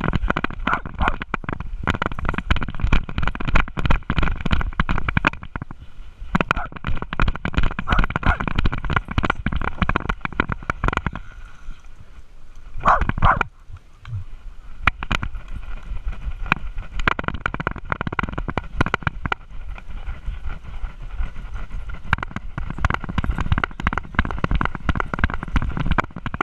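Close-up rubbing, scuffing and knocking of a GoPro camera strapped to a small dog's harness as the dog moves about, its fur brushing against the housing. There is a brief louder burst about thirteen seconds in.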